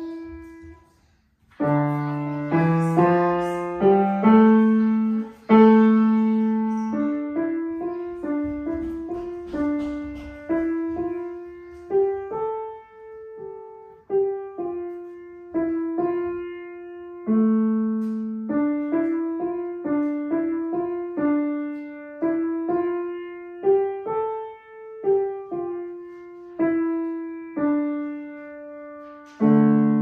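Grand piano played solo: a melody of separate notes and chords in the middle range, with a short break about a second in and a final chord near the end that rings and dies away.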